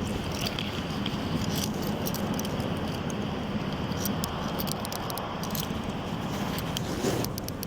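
Metal handcuffs clicking and jangling as they are ratcheted onto a man's wrists, a run of short sharp clicks over a steady background rumble of vehicle noise.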